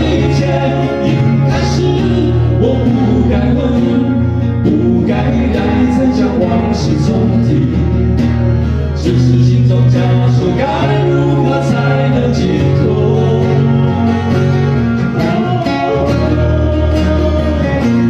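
Live acoustic band playing a song: several acoustic guitars strummed and picked over a steady low bass line and beat.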